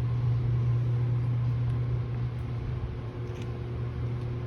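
Steady low mechanical hum, with a faint click about three and a half seconds in.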